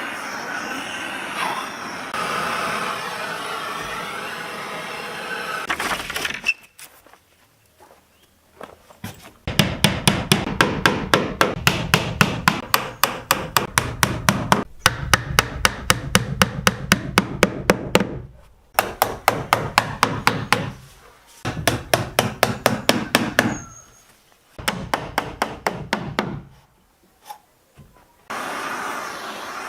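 Hammer striking wood in rapid, even runs of blows, about five a second, broken into several bursts with short pauses between them. A steady rough noise runs before and after the hammering.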